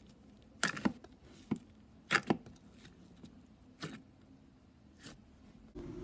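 Slime being poked and squeezed by hand, making short sticky pops and clicks at irregular intervals, two pairs of them louder than the rest. Just before the end a steady low hum comes in.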